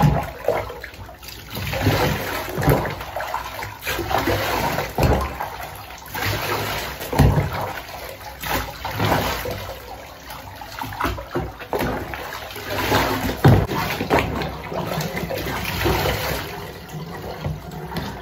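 Bathwater scooped up with a plastic container and poured over a dog in a bathtub, in repeated splashing pours.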